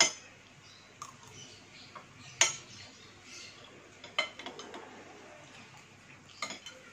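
Metal spoon and fork clinking and scraping against a glass bowl of noodle soup: a handful of sharp separate clinks a second or two apart, the loudest about two and a half seconds in.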